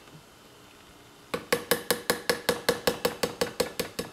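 Steel pin punch tapped quickly and lightly with a small hammer, driving the magazine-band pin of a Winchester 1873 rifle back into place. After a quiet second or so, a fast even run of metallic taps begins, about seven a second, each with a short bright ring.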